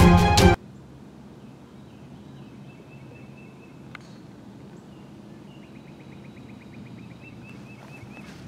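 Background music cuts off abruptly about half a second in, leaving outdoor ambience with birds calling. About four seconds in, a single faint, sharp click of a golf club striking the ball; later a bird sings a trill of rapid repeated notes.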